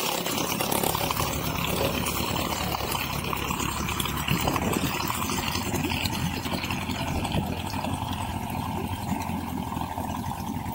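Boat engine running steadily, a low continuous hum.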